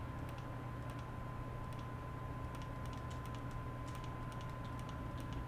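Faint, irregular clicking of computer input, keys or mouse, over a steady low electrical hum and a thin steady high tone.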